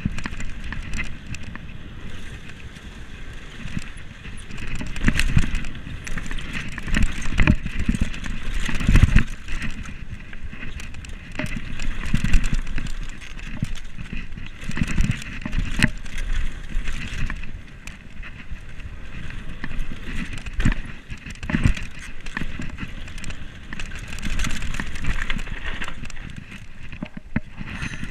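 Mountain bike (Commencal Meta SX2) riding fast down a dirt and gravel trail: steady tyre noise over hardpack with frequent clattering knocks from the bike over bumps.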